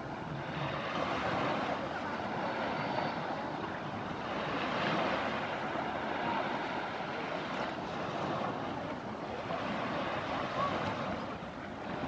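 Sea surf washing onto a sandy beach: a steady rushing wash that swells and fades every few seconds.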